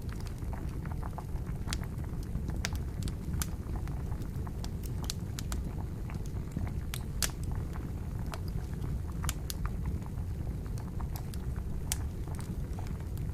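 Wood campfire crackling, with irregular sharp pops and snaps over a steady low rumble of boiling water.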